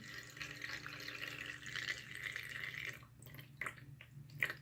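Water trickling slowly into a small plastic medicine bottle packed with airsoft BBs, filling it to the brim; the trickle stops about three seconds in, leaving a few drips.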